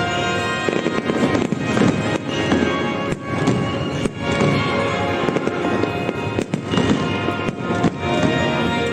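Fireworks bursting in a run of sharp bangs over the display's music soundtrack, which plays on steadily underneath.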